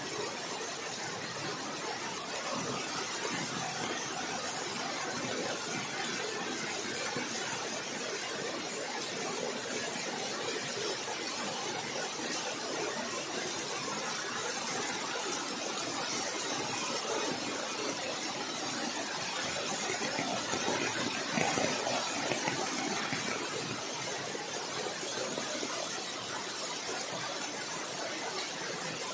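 Floodwater rushing along a street: a steady, even rush of water noise.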